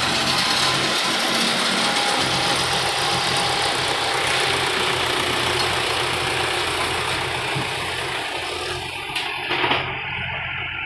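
Diesel engine of a heavy machine running steadily at idle, with one short knock about a second before the end.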